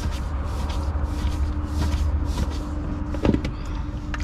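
Steady low machinery rumble with a constant hum, and two sharp knocks, about three seconds in and near the end.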